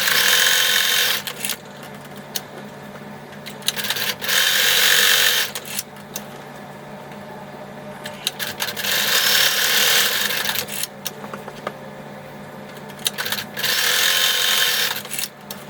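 Sewing machine stitching a narrow double-folded hem, running in four bursts of a second or two each. Between the bursts come short pauses with small clicks.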